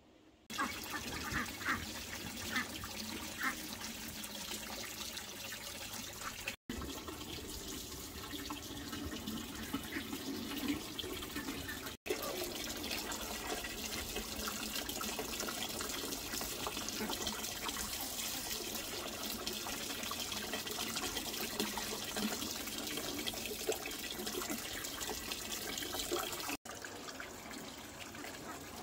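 Running and splashing water, steady throughout, broken by three abrupt cuts.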